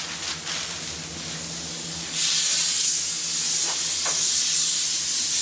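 Compressed air hissing steadily from a hand-held air gun on a hose, growing much louder about two seconds in as more air is let through.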